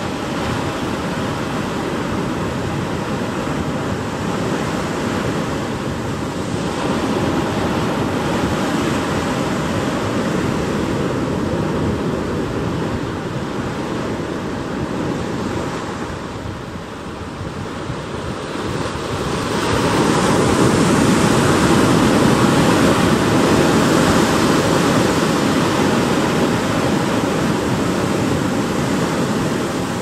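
Ocean waves washing, a steady rush of water noise that dips briefly and then swells louder about two-thirds of the way in.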